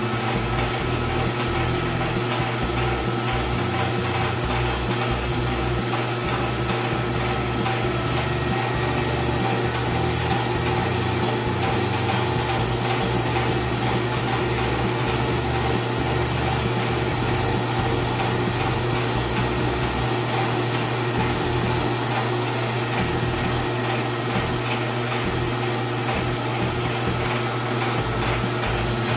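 Small electric screw oil press running steadily while pressing cacao nibs, separating the cacao butter from the cacao powder: a continuous motor hum with a low drone that does not change.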